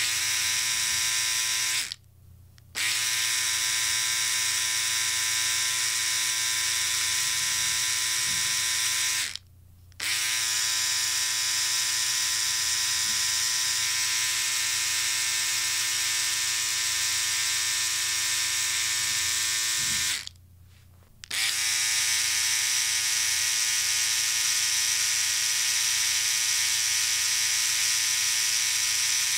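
Electric shaver buzzing steadily, switched off for a moment and back on three times: about two seconds in, about nine seconds in, and about twenty seconds in.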